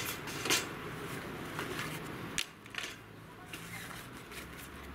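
Rustling and crinkling of a green drawstring bag being opened by hand, with a few short sharp crackles.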